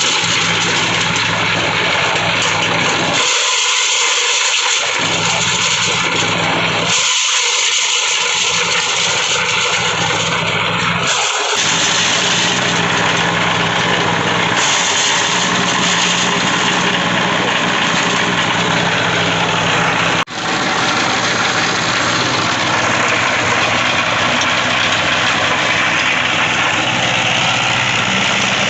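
Homemade corn sheller built from a used water pump, running steadily: a loud, even rushing noise over a low hum. The sound cuts out for an instant about twenty seconds in.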